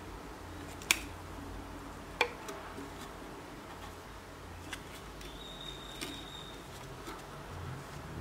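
Disc magnets clicking into place on the can and balloon diaphragm of a homemade tin-can free-piston Stirling engine as they are fitted as its weight: two sharp clicks about one and two seconds in, then a few fainter taps.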